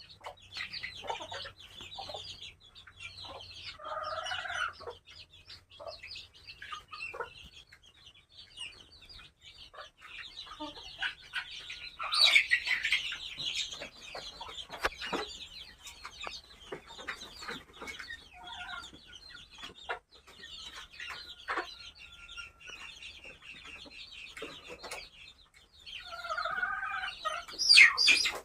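A flock of local chickens: chicks peep in quick high chirps throughout, and hens give lower clucking calls now and then. It grows louder about twelve seconds in and again near the end.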